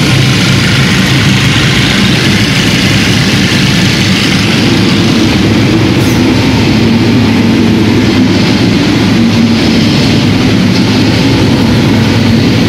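Steady loud machinery drone with a low, even hum under a broad hiss, unchanging throughout.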